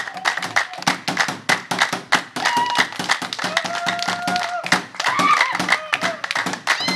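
Many people clapping hands in a fast, steady rhythm for dancers, with a few voices calling out held notes over the clapping.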